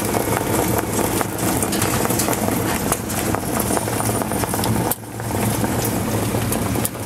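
Engine and road noise heard from inside the cab of a harness-racing starting-gate car driving down the track: a steady low drone with a brief dip in level about five seconds in.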